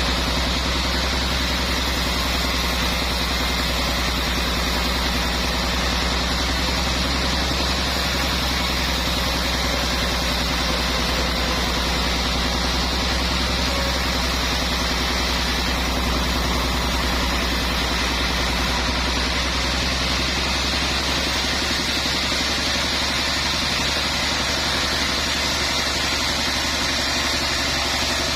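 Sawmill machinery running steadily, an even engine-like hum with a constant hiss over it.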